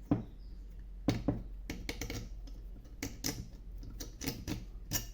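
Irregular clicks and light knocks of a hand tool working the last bolt and nut loose during disassembly of a washing machine.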